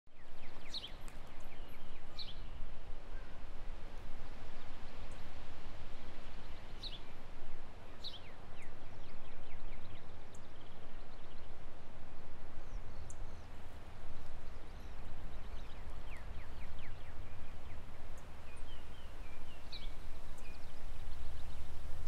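Outdoor bird ambience: a steady low rumble with scattered short, high, falling bird chirps every few seconds.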